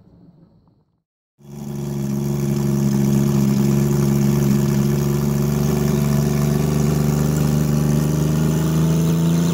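MH-1 light helicopter running on the ground with its main rotor turning: a steady engine tone that cuts in suddenly about a second and a half in, after a brief silence. It rises slightly in pitch near the end.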